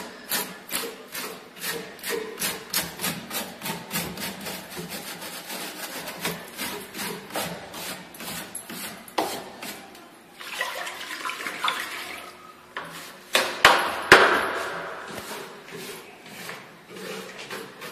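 Stiff brush scrubbing chemically softened old paint off a wooden furniture leg, in fast back-and-forth strokes of about four or five a second. A couple of sharp, louder knocks and a rush of noise break in about two-thirds of the way through before the scrubbing goes on.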